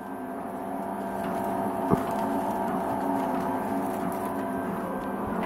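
Delta 3D printer running a print, its stepper motors giving a steady whine of several tones. There is a single knock about two seconds in.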